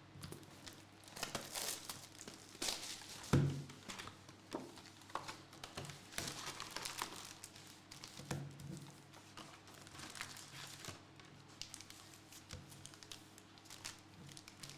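Plastic trading-card wrapping being handled, crinkling and tearing in many short crackles, with one louder thump about three and a half seconds in.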